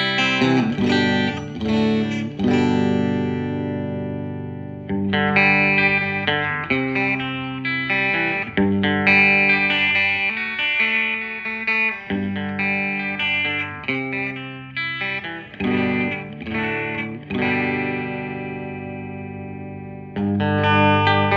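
Electric guitar (a Fender Stratocaster) played through an amplifier on the bridge pickup: a series of chords and short figures, several left to ring out and fade.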